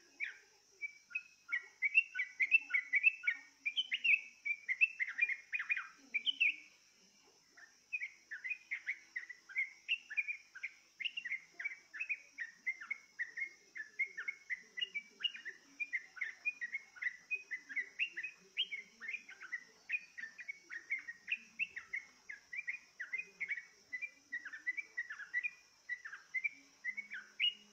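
Yellow-vented bulbul (trucukan) song: a fast, continuous run of bubbly, chirping phrases, with a short pause about seven seconds in.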